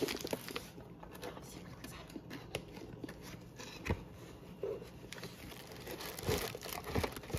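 A cardboard gift box being handled and opened, with scattered knocks and scrapes of the cardboard. Near the end, the plastic wrapping inside rustles and crinkles as hands reach into the box.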